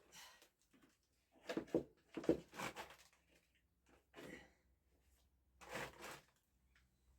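Irregular short scraping and knocking sounds: a cluster about a second and a half to three seconds in, and another near six seconds. They fit hand-digging out collapsed clay with a shovel.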